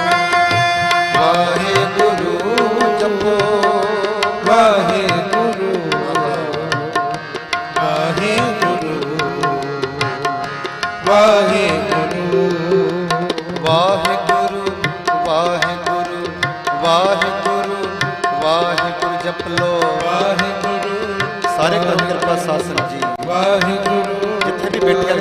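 Sikh kirtan music: two harmoniums hold a steady melody while a tabla keeps a brisk rhythm of strokes, with a sung vocal line over the top.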